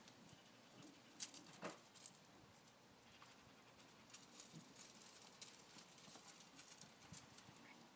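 Faint, light patter with scattered small clicks: small puppies' paws scampering over stone paving and gravel.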